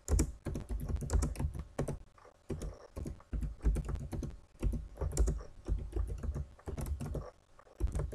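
Typing on a computer keyboard: quick runs of keystrokes with a couple of short pauses.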